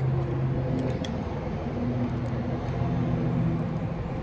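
Steady low mechanical hum and rumble, with a few faint light clicks about a second in.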